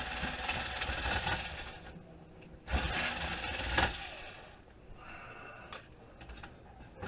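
Handheld power screwdriver motor running in three bursts while backing out screws: a run that stops about two seconds in, a louder one from about three to four seconds in, and a fainter one near the end.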